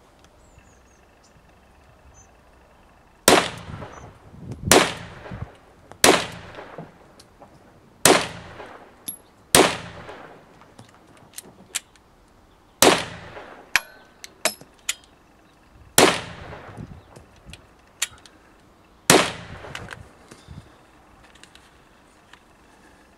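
9 mm Luger carbine fired eight times, single semi-automatic shots spaced about one and a half to three seconds apart, each cracking sharply and dying away briefly. Fainter clicks fall between the later shots.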